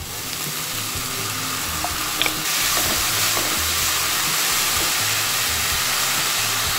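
Chicken and vegetable filling sizzling in a hot pan while it is stirred with a wooden spatula; the steady sizzle grows louder about two and a half seconds in.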